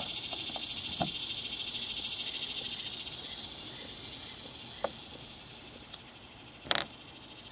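A steady, high-pitched, insect-like chirring in the background, slowly fading, with a few light clicks as plastic fuel injectors and an injector cap are handled on a rubber mat; the sharpest click comes near the end.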